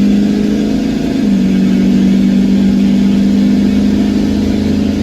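Ford 6.7 Powerstroke V8 turbo-diesel pulling hard while passing traffic. Its engine note holds steady and steps up in pitch about a second in.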